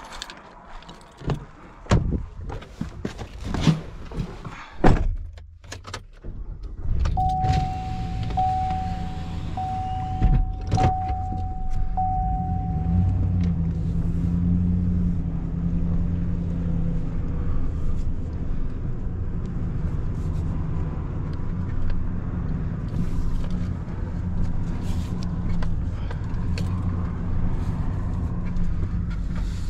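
Knocks and clicks of a truck door and handling, then the truck's engine comes on about seven seconds in and runs steadily at idle. A vehicle warning chime beeps about five times, evenly spaced, just after the engine starts.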